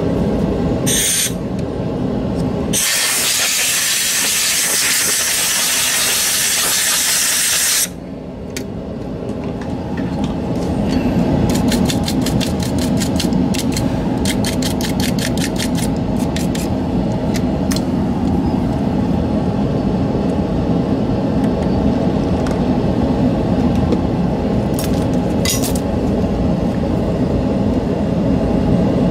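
Compressed air blowing into the opened Logitech G903 mouse to clear out debris: a short hiss about a second in, then a long blast of about five seconds, then a run of quick short puffs, and one more brief puff near the end. A steady low machine drone runs underneath.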